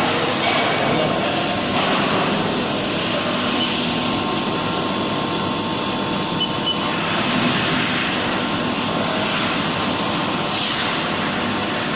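Haas VM-2 CNC vertical mill cutting steel: a steady hissing machining noise with faint high whining tones.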